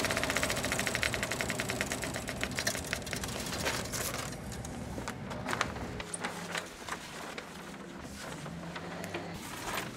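Film projector running with a fast, even mechanical clatter that fades out over the first few seconds. It is followed by the crinkling and rustling of a large paper poster being handled, over a low steady hum.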